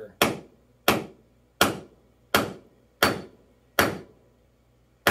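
Hammer striking a cold chisel held in the score line of a clamped geode: about seven evenly spaced blows, roughly three-quarters of a second apart, each a sharp strike with a short ring. The blows are deliberately soft at first, building up force to crack the geode cleanly in two.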